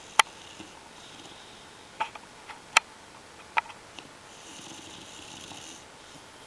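Bulldog snoring with thin, hissy breaths rather than a deep rumble. Sharp clicking snaps run through the first three and a half seconds, and a longer hissing breath comes about four and a half seconds in.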